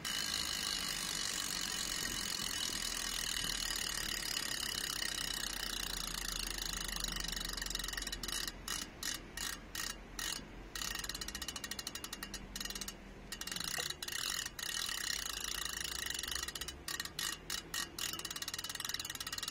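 Rear hub freehub of a Mavic R-SYS Premium wheel ratcheting: the pawls click so fast that they make a continuous buzz. For about the first eight seconds the buzz is unbroken; after that it keeps stopping and starting in short bursts.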